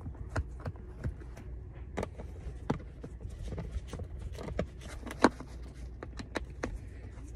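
Screwdriver driving the screws of a plastic chalk line case: irregular small clicks and scrapes, the sharpest about five seconds in, over a low steady hum.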